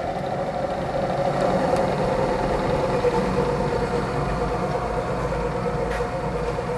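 Rockwell 17-600 variable-speed drill press running under power, its 1 hp three-phase motor and drive giving a steady hum with a mid-pitched whine.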